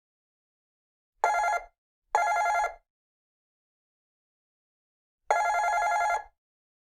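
A telephone ringing with a rapid two-tone trill: two short rings close together, then a pause and one longer ring.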